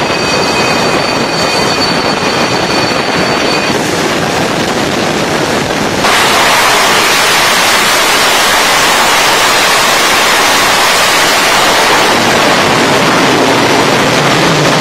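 J-15 fighter jet engines running on a carrier flight deck: a loud, steady jet roar with a high whine until about four seconds in. About six seconds in, the noise jumps suddenly louder and rougher.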